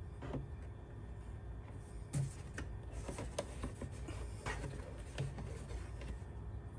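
Motor oil pouring from a plastic jug through a funnel into an engine's oil filler, with irregular glugs and plastic clicks and knocks as the jug is tilted and handled, over a steady low hum.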